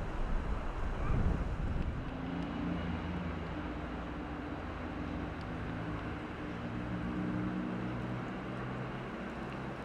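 Wind rumbling on the microphone, easing after about two seconds into a steady low hum with several pitched tones.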